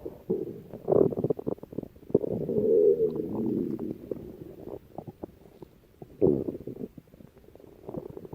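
Human stomach growling: irregular gurgling rumbles in several bouts, the longest starting about two seconds in and lasting over a second, with short crackling gurgles in between.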